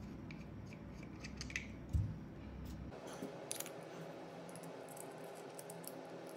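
Small metal and plastic clicks and scrapes as a vape box mod and its boro tank are handled and taken apart, with a dull thump about two seconds in.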